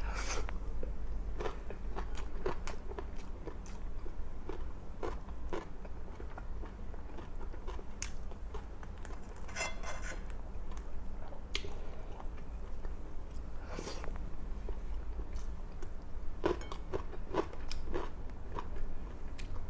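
A person eating close to the microphone: chewing and biting through a meal of grilled milkfish, rice and fresh vegetable salad, with scattered sharp mouth clicks and crunches and a denser patch of crackly bites about halfway through.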